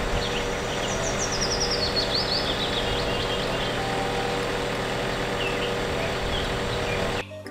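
Truck-mounted aerial work platform running with a steady hum as its telescopic boom extends, with small birds chirping. It cuts off suddenly near the end.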